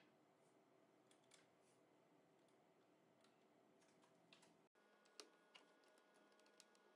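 Near silence, with a few faint, scattered clicks from a metal swing-arm TV wall mount being handled and a hex key being turned in its bracket.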